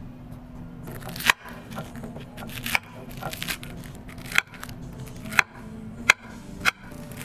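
Table knife and spoon clinking and scraping on a ceramic plate while cutting into a whole fried fish, with about seven sharp clinks spaced irregularly.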